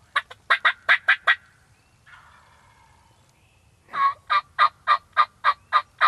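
Turkey yelps: a quick run of about seven loud notes right at the start, then after a pause a longer run of about ten evenly spaced notes.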